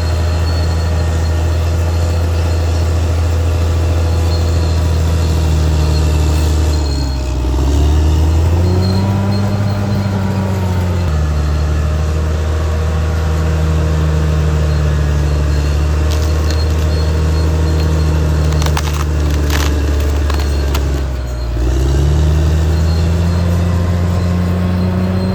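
Caterpillar D6R XL bulldozer's diesel engine running steadily under load. Its pitch dips and then climbs twice, about a quarter of the way in and again near the end, and a few sharp metallic clanks come just past the middle.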